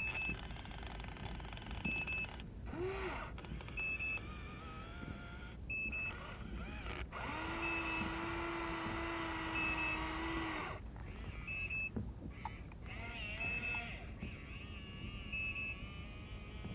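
Electric motors of a Huina 1593 RC excavator whining as the boom and arm move: short rising whines, and one steady whine of about three seconds in the middle. A short high beep repeats about every two seconds.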